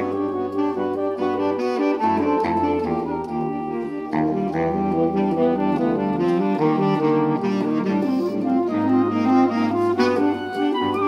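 Saxophone ensemble of soprano, alto, tenor, baritone and bass saxophones playing together: quick, shifting chords in the middle voices over long-held low bass notes.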